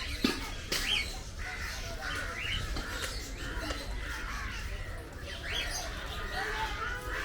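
Birds chirping: many short calls, several overlapping, over a low rumble, with a sharp click just after the start.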